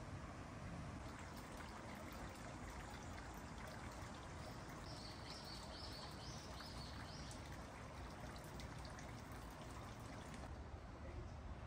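Faint, steady sound of running water pouring and trickling. About halfway through, a quick run of six or so short, high chirps sounds over it.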